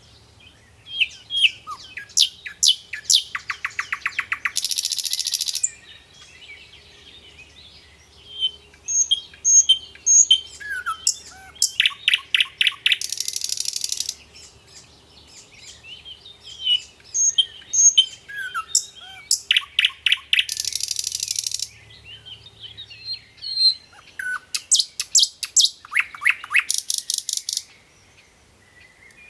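A songbird singing the same song four times with short pauses. Each song is a run of varied chirps that speeds into a fast trill and ends in a dry, buzzy rattle.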